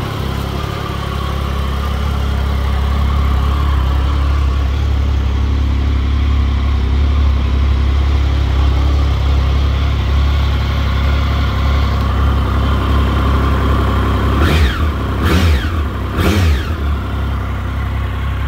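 Triumph Sprint GT 1050's three-cylinder engine idling steadily, then revved briefly three times in quick succession near the end.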